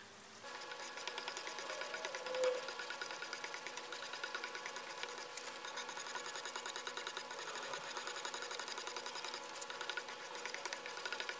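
A small motor-driven machine starts about half a second in and runs steadily with a fast, even clatter.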